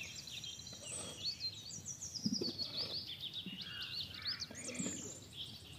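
Small birds chirping busily in quick, high, repeated notes, over a faint background of insects.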